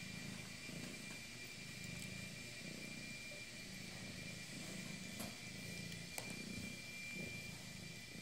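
Domestic cat purring, a low hum that comes in breath-length pulses. Two sharp clicks stand out about five and six seconds in.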